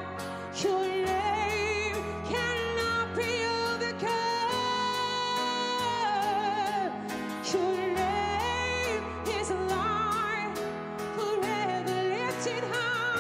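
Worship band playing, with a voice singing long held notes with vibrato over a steady bass and a regular drum beat.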